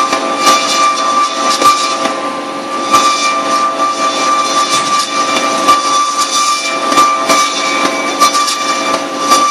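Computerized metal-cutting band saw running, a steady high whine with irregular clanks and clicks over it.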